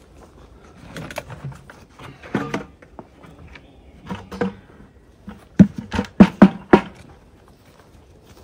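A plastic bucket and gear being handled: scattered light knocks, then a quick run of five or six sharp clacks a little past halfway.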